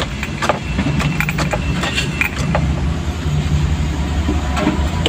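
Vehicle engine idling steadily, with a few light clicks over it.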